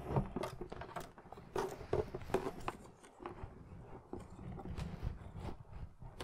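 Handling noise from a plastic replica helmet: soft knocks, taps and scrapes as padding inserts are pressed into place inside the shell, mostly in the first half.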